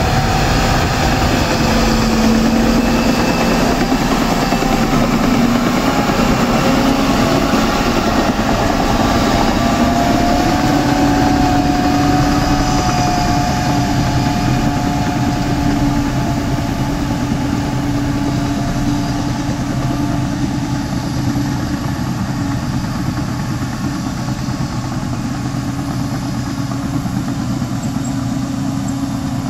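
Caterpillar D7R crawler dozer's diesel engine running as the machine works and travels, its note shifting in pitch during the first ten seconds. It grows a little quieter near the end as the dozer moves away.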